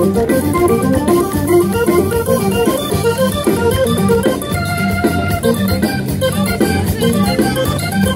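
Live band music over a festival PA: a keyboard with an organ sound plays quick melodic runs over electric guitars and drums.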